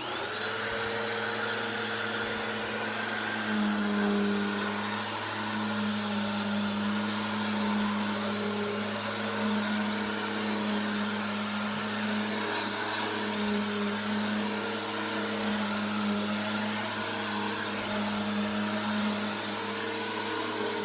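Bissell PowerForce Helix model 2191 upright vacuum cleaner switched on, its motor winding up in pitch within the first half second, then running steadily.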